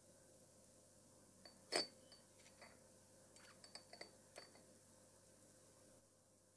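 Faint clinks of metal tweezers and small watch-case parts against a glass jar: one clearer clink about two seconds in, then a few light ticks.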